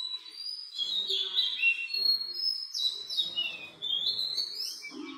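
Songbirds chirping and singing: a busy run of quick, high whistled notes that slide up and down, several overlapping.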